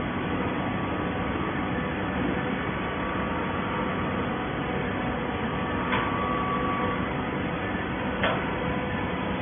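Steady hum and noise of an automatic horizontal baler's hydraulic power unit running. A knock comes about six seconds in, followed by a brief whine, and a second knock comes about two seconds later.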